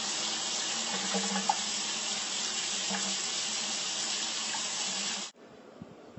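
Water running steadily, a even rushing hiss, stopping abruptly a little over five seconds in.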